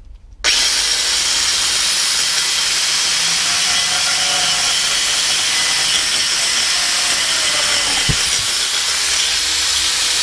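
A 115 mm angle grinder fitted with a TCT saw blade cutting through wood: a loud, steady rasping whir. It starts abruptly about half a second in, and there is a short knock near the end.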